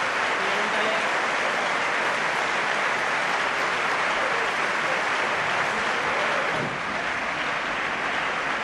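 Theatre audience applauding: dense, continuous clapping that eases slightly about seven seconds in.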